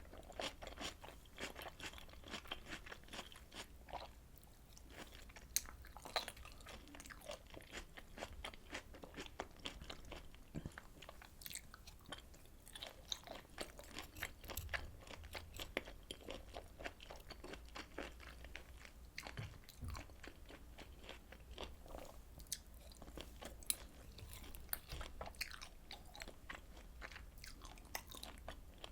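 Close-miked chewing and biting of grilled intestines (beef large intestine, beef abomasum, smoked pork intestine), a dense, irregular run of small crunchy clicks.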